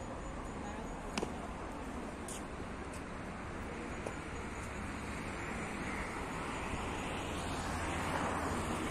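Steady city traffic noise, swelling near the end, with a few short clicks, the sharpest about a second in.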